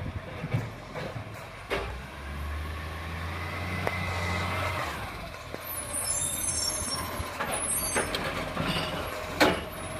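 Garbage truck's engine running, a steady low drone from about two to five seconds in, then a high-pitched brake squeal around six seconds, with a few sharp knocks.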